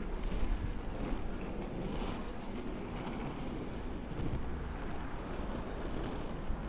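Inline skate wheels rolling over pavement, a steady rumble, with wind noise on the microphone.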